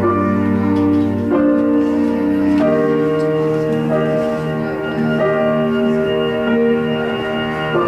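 Music of sustained held chords, moving to a new chord about every second and a half.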